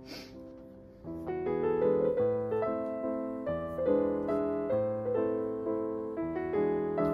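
Background piano music: gentle notes and chords, with a short lull about a second in before the playing picks up again.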